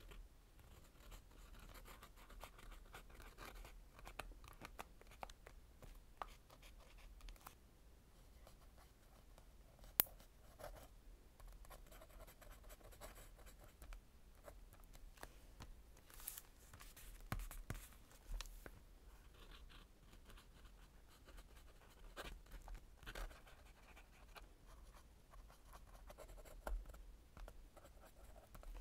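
Lamy fountain pen nib scratching faintly over journal paper while writing cursive, in short irregular strokes. A single sharp click about ten seconds in.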